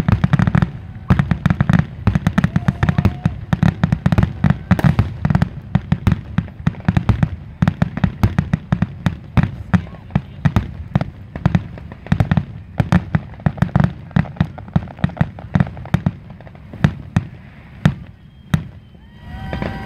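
Fireworks grand finale: a dense, rapid barrage of aerial shell bursts, several bangs a second, thinning out over the last few seconds.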